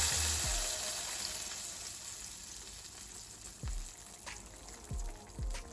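A hot-oil tempering of fennel seed, curry leaves and cinnamon sizzling loudly, then dying away, with a few soft knocks near the end.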